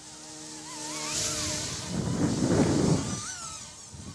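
Eachine E200 Pro RC scale helicopter flying low past, its electric motor and rotor sound rising to a peak about two and a half seconds in, then fading as it moves away.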